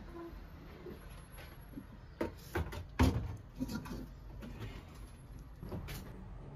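A few scattered knocks and clunks from household objects being handled and set down, the loudest about three seconds in.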